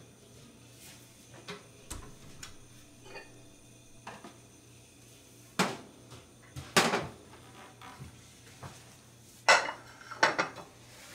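Crockery and utensils handled while tea is made: a few sharp clinks and knocks of dishes on the counter, loudest about five and a half, seven and nine and a half seconds in, with lighter ticks between.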